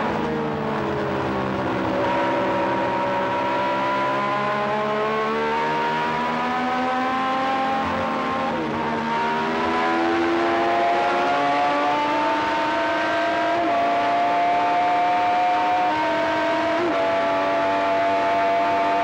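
Matra V12 Formula 1 engine at full throttle, heard onboard the Ligier: its pitch climbs steadily as the car accelerates and drops sharply with each upshift, about eight and a half seconds in, again near fourteen seconds and once more near seventeen seconds.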